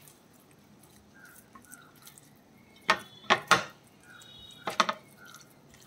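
Hands rubbing an oily chilli-and-turmeric masala paste into whole fish on a glass plate: soft wet squishing, with a few sharp wet smacks about three seconds in and again near five.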